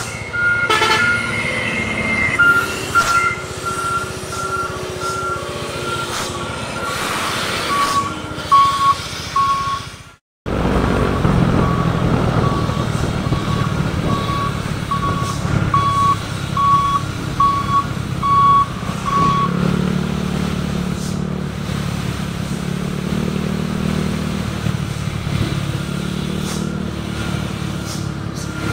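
A telolet horn sounds a long string of short, evenly spaced beeps, about one to two a second, with the pitch dropping a step partway through. Under it a heavy vehicle's engine runs and is revved harder, with the beeping stopping in the later part.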